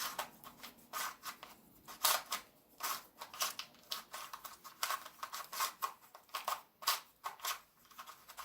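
Plastic packaging crinkling and clicking at irregular intervals as a QiYi 2x2x3 cuboid puzzle is unwrapped by hand.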